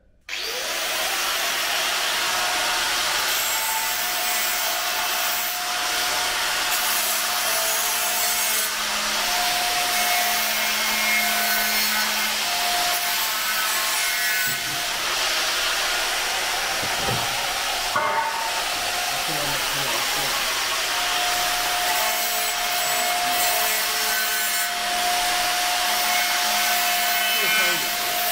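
Angle grinder running continuously against a galvanised steel brace bar, grinding the zinc coating off ahead of welding, its whine coming and going as it bites, easing briefly about two-thirds of the way through.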